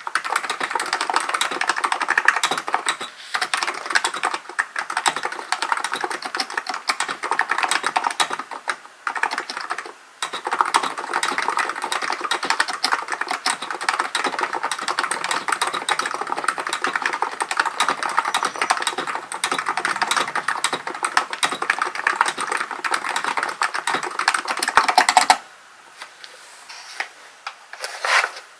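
Fast, continuous typing on a Hansung GK898B electro-capacitive keyboard, a dense stream of keystrokes with a few brief pauses. The typing stops abruptly about three-quarters of the way through, leaving only a couple of isolated key taps near the end.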